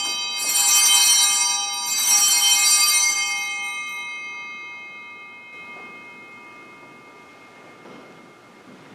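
Altar bells (sanctus bells) rung at the elevation of the host during the consecration: three shakes of a cluster of small bells, the last about two seconds in. The bells then ring out and fade slowly.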